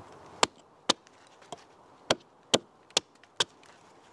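Fiskars Norden N10 hatchet chopping a point onto a wooden stake held against a log: about seven sharp chops, roughly two a second, one of them faint.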